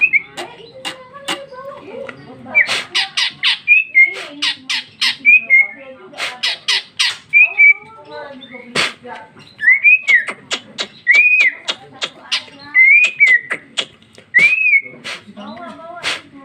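Caged female green leafbird (cucak ijo) singing loudly: rapid runs of sharp clicking chips mixed with short varied notes, then four clear arched whistles a second or so apart in the second half. This is the calling of a female in breeding condition to a male.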